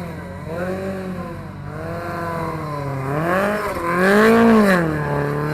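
Rally car engine revving, its pitch rising and falling several times, with the highest and loudest rev about four seconds in before it drops back.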